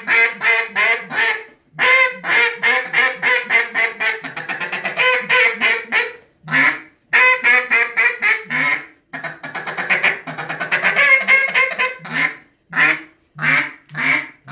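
Hank Walker Decoy Company handmade hen duck call blown in long runs of quick, clipped notes, about five a second: a rapid feeding chuckle, the closed-mouth call of happy, feeding ducks. From about twelve seconds in it changes to a string of separate, fuller quacks about two a second.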